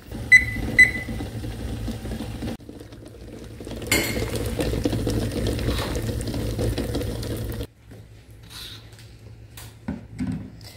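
Two light clinks of kitchenware near the start, then water boiling hard around eggs in a stainless steel saucepan: a steady bubbling noise that cuts off suddenly. After it come a few faint knocks of jars set down on a wooden counter.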